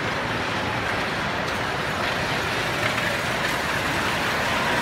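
Steady rumbling running noise of a small ride-on mall train moving along its track, heard from aboard one of its cars.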